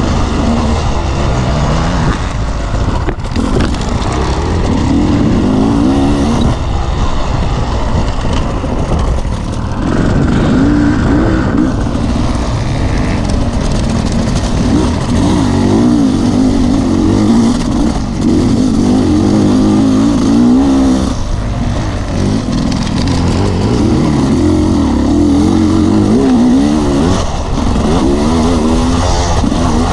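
Off-road dirt bike engine heard close up from onboard, revving up and down over and over with the throttle while riding, over a steady low rumble.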